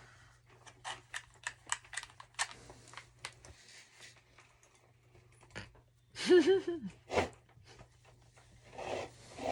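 Soft, quick clicks and taps of small objects being handled, then a child's loud, brief high-pitched vocal sound about six seconds in, with a shorter one a second later.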